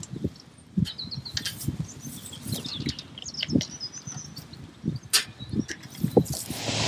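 Irregular low thuds and a few sharp clicks from handling an electric-fence polywire reel and its plastic gate handle at a wooden post, with wellington boots shifting on wet grass. A few faint bird chirps come through.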